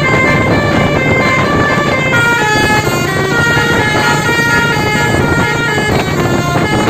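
Bus telolet horn, a set of electrically switched air-horn trumpets, playing a winding melody of short held notes that step up and down, over steady loud vehicle noise.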